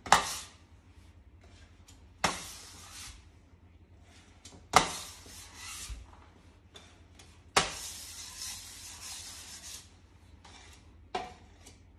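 Metal scraper and spatula scraping melted chocolate off a countertop and against the rim of a bowl. There are about five scrapes, each starting with a sharp clack; the longest runs for about two seconds, near the middle. This is chocolate being gathered back into the bowl after cooling on the counter for tempering.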